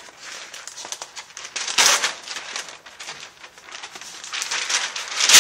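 Large sheets of chart paper on a wall-mounted pad being flipped over, rustling and crinkling, with a louder swish about two seconds in and another near the end.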